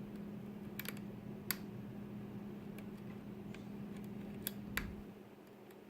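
Small, sharp, irregular clicks of a lock pick working the serrated pins of a pin-tumbler lock under light tension, about six of them, over a steady low hum.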